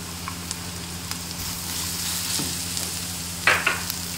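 Diced carrots sizzling in hot oil with onion and garlic in an aluminium frying pan as a silicone spatula stirs them, with a brief louder sound about three and a half seconds in.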